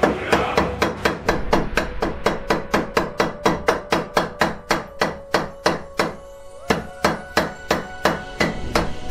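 Rapid hammer blows on hot steel on an anvil, about five a second, forging a fireplace poker, with a metallic ring carrying between strikes. The blows stop briefly about six seconds in, then start again.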